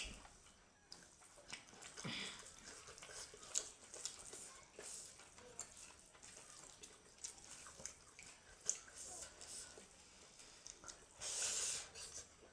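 Eating sounds: scattered soft clicks and smacks of chewing and mouth movement, with a brief louder hiss near the end.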